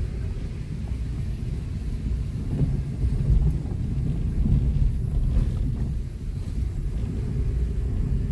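Low, steady rumble of a car driving slowly over a rough dirt road, heard from inside the cabin: engine and tyres on the uneven unpaved surface.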